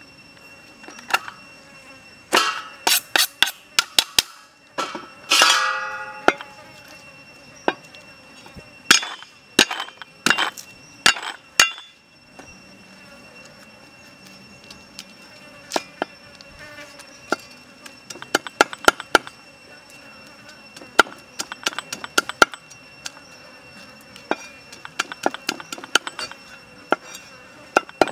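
Sharp knocks and clinks in the first half. Then a cleaver tapping and chopping garlic cloves on a wooden stump chopping block, with the strokes coming quicker near the end.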